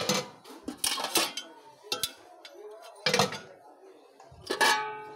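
Metal idli cooker being handled: the idli plate stand and pot clank against each other in a run of about five knocks. The last knock, near the end, rings briefly.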